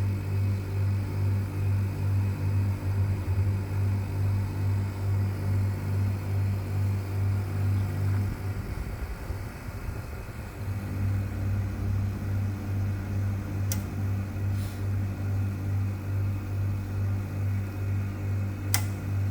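Indoor blower of a 1979 National floor-standing multi-split air conditioner running at medium fan speed: a steady low hum that swells and fades about twice a second. It drops away for about two seconds around the middle, and a few sharp clicks come near the end.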